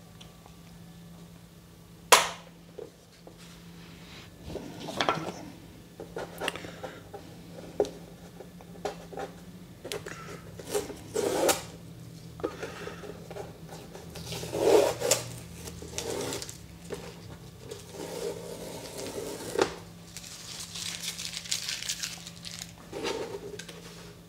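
Handling noises on a wooden drawing board: scattered knocks and clicks, with several longer rustles of masking tape being peeled off the edges of a watercolour sheet, the longest of these near the end.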